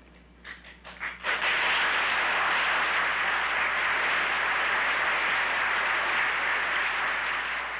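Studio audience applauding: a few scattered claps about half a second in, then steady, loud applause from about a second and a half in.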